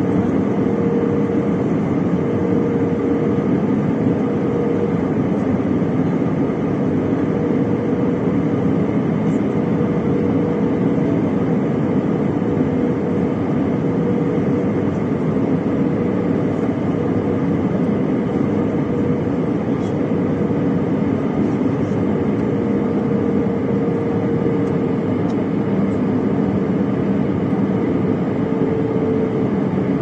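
Jet airliner cabin noise from a seat over the wing: the steady roar of the engines and rushing air, with a steady hum that fades in and out.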